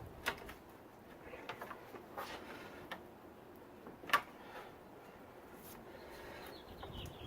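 Scattered sharp metallic clicks and clinks of a screwdriver and hand tools working against the timing belt tensioner pulley, the loudest about four seconds in.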